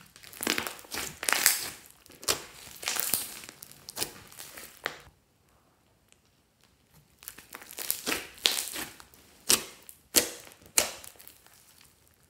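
Hands squeezing and stretching glittery green slime full of small beads, making sticky crackling and sharp popping sounds. It comes in two spells with a pause of about two seconds between them, and the second spell has several sharper pops.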